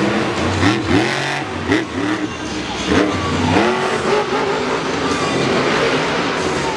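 Monster truck's supercharged V8 revving hard several times in quick succession, its pitch swooping up and falling back about once a second, over the noise of a stadium crowd.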